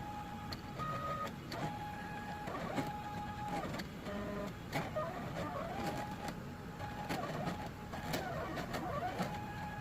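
Stepper motors of a CNC cutting plotter whining as the carriage moves, each move holding one pitch for about a second, with short glides at its start and end, then pausing or shifting to another pitch. Small clicks sound between moves.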